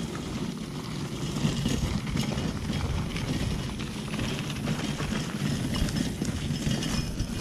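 Footsteps and the wheels of a hand-pulled cart crunching and rattling steadily over a rough dirt path.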